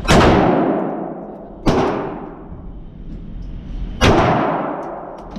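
AR-15 rifle fired three times in slow single shots, the second about a second and a half after the first and the third about two seconds later. Each shot rings on in a long echo that dies away over a second or more inside the enclosed indoor range.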